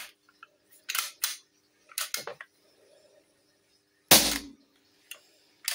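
Sharp plastic-and-metal clicks from a CO2 blowback BB pistol's slide and trigger, then one louder sharp pop about four seconds in as a shot of CO2 is dry-fired with no BBs loaded. The blowback slide locks back on the empty magazine.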